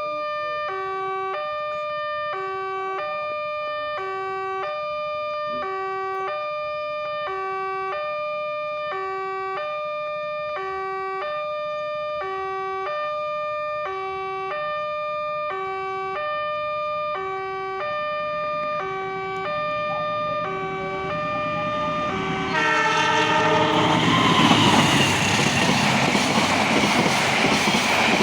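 Railway level-crossing warning alarm sounding a repeating electronic two-tone signal, low and high notes alternating about once a second. About 22 seconds in, a train arrives and rushes past at speed, its louder noise swamping the alarm.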